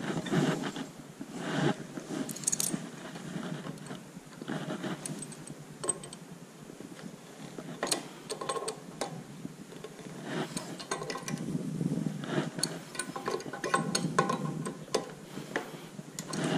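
Adjustable spanner tightening a brass hose connector onto a ball valve in a stainless-steel tap box: irregular metallic clicks and scrapes as the jaws are set and turned on the fitting.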